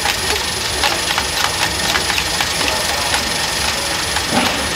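Gravel clattering in many quick, irregular clicks over a steady background hiss and hum.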